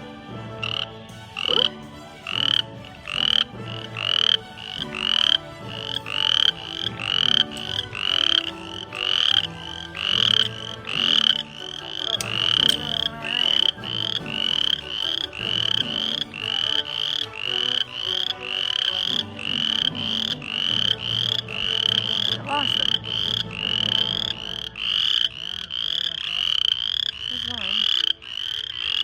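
Loud frogs calling, rapid repeated calls at about two a second.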